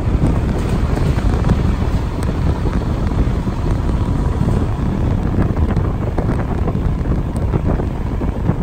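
Wind rushing over the microphone held out of a moving passenger train's window, over the steady running noise of the train.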